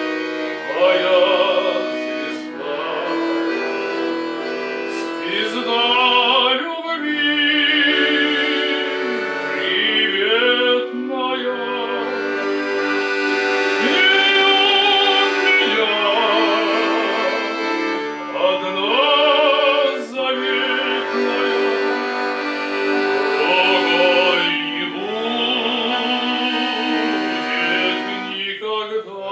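Classical-style singing with vibrato over instrumental accompaniment, the voice holding long notes and sliding into new ones.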